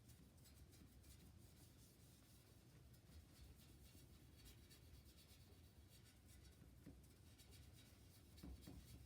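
Faint scratchy rubbing, repeated throughout, over a low steady hum, with a few soft knocks near the end.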